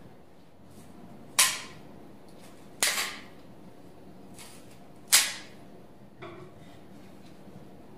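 Three sharp blows of a wooden mallet on wood, a second or two apart, then a lighter knock about six seconds in.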